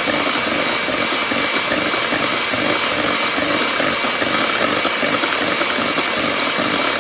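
Electric hand mixer running steadily, its twin wire beaters churning mashed banana and coconut sugar in a stainless steel bowl, with a steady high whine from the motor.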